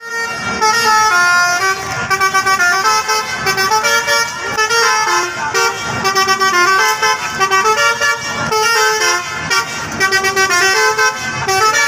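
Telolet bus horn, a bank of multi-tone air horns, playing a melody of quick stepped notes, with several tones sounding together.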